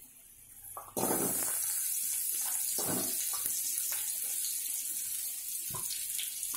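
Sliced onions sizzling as they hit hot oil with whole spices. A sudden hiss starts about a second in and carries on steadily, with a few knocks as more slices drop in.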